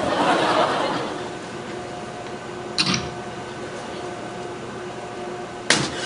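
Two sharp cracks of joints popping, about three seconds apart, the second the louder, over a steady low hum. A short rush of noise comes at the start.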